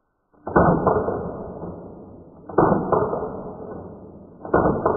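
Smith & Wesson M&P15-22 .22 LR rifle fitted with an AAC Prodigy suppressor, firing three shots about two seconds apart. Each shot is a sharp crack with a fainter second crack a moment later and a long fading echo.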